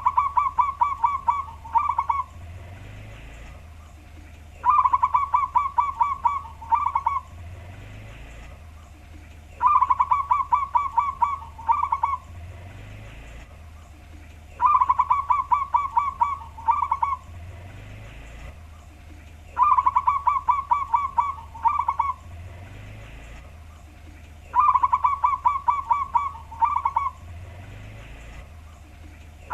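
Zebra dove (perkutut) cooing, its deep-toned song repeated six times about five seconds apart. Each phrase is a quick run of about seven notes, then a short break and two closing notes. A faint steady low hum lies underneath.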